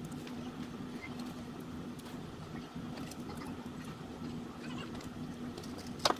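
Faint handling sounds: small scattered ticks and rustles of adhesive rubber feet being peeled and pressed onto a plastic enclosure, over a steady low hum, with one sharp click near the end as the case is handled.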